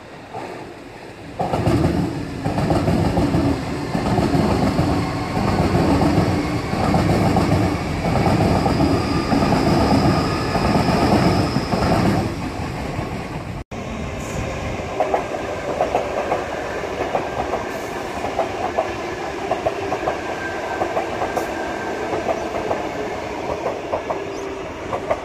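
A Sydney Trains double-deck electric train comes by suddenly and passes close, its wheels clattering rhythmically over the rails. After a cut about 14 s in, a Tangara double-deck set passes a little more quietly with the same steady clatter.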